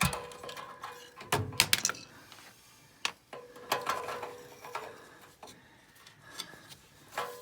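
Scattered clicks, knocks and light metallic rattles of a nut driver and sheet-metal bracket as the screw holding a furnace blower motor's run capacitor is taken out.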